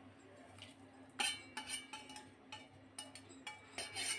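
A metal spoon scraping and clinking against a steel plate as salt, lemon slices and whole spices are tipped off it into an empty metal cooking pot, landing on its bottom. The clinks start about a second in and come in a quick irregular run, with a steady low hum underneath.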